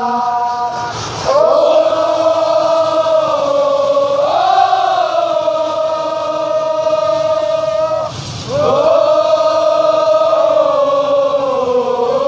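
A large crowd of football supporters singing a wordless melody together in long held notes, the pitch stepping between notes, with two brief breaks for breath about a second in and about eight seconds in.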